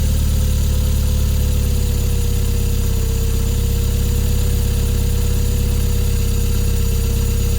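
Toyota MR2's 3S-GTE turbocharged four-cylinder engine idling steadily with a fast, even clicking running through it, a noise whose cause the owner has not found.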